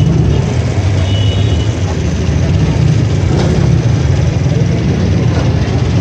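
Steady low rumble of road traffic and running engines, with a faint high tone about a second in.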